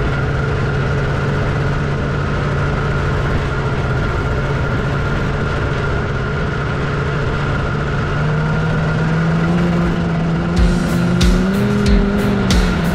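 Snowmobile engine running steadily at cruising speed, its pitch rising as it speeds up about two-thirds of the way through. Near the end, music with a regular beat comes in over it.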